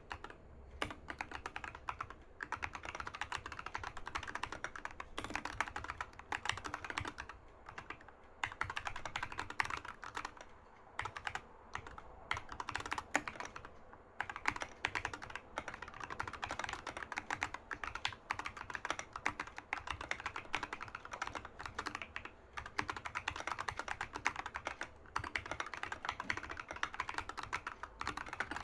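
Fast, continuous typing on a Keychron K6 65% mechanical keyboard with Huano moon yellow switches and SA-profile keycaps: dense key clicks and clacks, broken by a few brief pauses.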